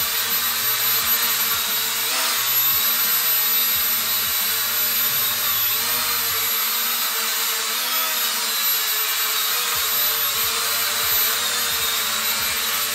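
E88 Pro mini quadcopter drone hovering, its motors and propellers giving a steady high whine and hiss. The pitch wavers a little every few seconds as the drone corrects its position.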